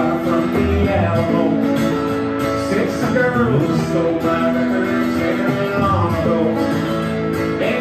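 Live band playing an instrumental break between verses: an electric guitar plays a lead line of held notes that bend in pitch, over a strummed acoustic guitar.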